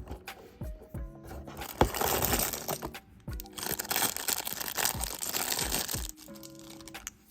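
Crinkling and rustling of packaging being handled, in two stretches of about one and two and a half seconds, with a few small clicks before them.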